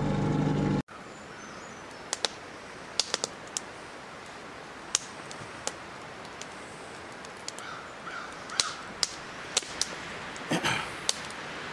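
A boat's outboard motor hums steadily and cuts off suddenly about a second in. Then comes faint outdoor background with scattered sharp clicks and ticks, a few close together, and a slightly longer knock near the end.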